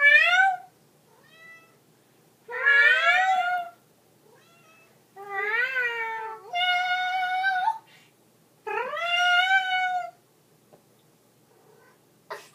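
Domestic cat giving a series of long, drawn-out meows, about five loud calls of roughly a second each, most rising in pitch and then holding, with short pauses between.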